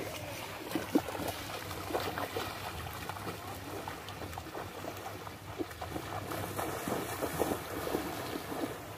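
Feet wading through shallow seawater, with short, irregular splashes over a steady wash of water and wind.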